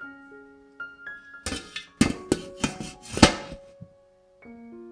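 A glass pot lid set onto a stainless-steel steamer pot, knocking and clattering several times over about two seconds, the last knock the loudest. Soft piano background music plays throughout.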